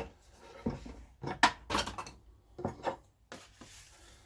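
Objects being handled and set down: a series of separate knocks and clinks, the loudest about a second and a half in.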